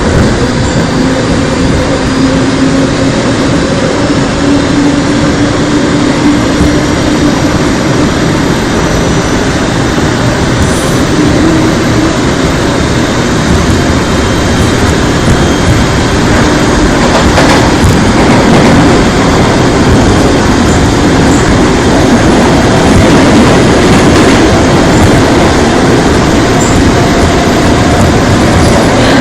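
Seoul Metro Line 2 old 2000-series resistor-controlled electric train running, heard from inside the car: a loud steady rumble of wheels and car body. A low motor hum rises slowly in pitch over the first ten seconds or so, and the running noise grows somewhat louder a little past halfway.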